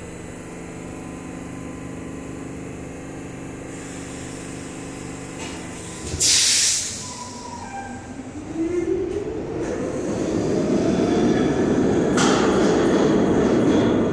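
R62 subway train of the 3 line humming at the platform, then a loud burst of air hiss about six seconds in. It pulls out with its motor whine rising in pitch and the rumble of its wheels growing steadily louder.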